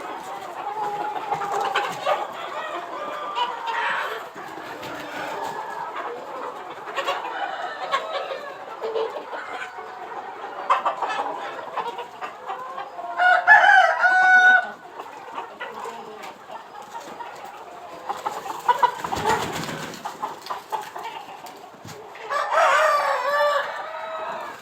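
A flock of Aseel chickens clucking continuously, with two loud crows standing out, one about halfway through and one near the end, and a brief noisy burst between them.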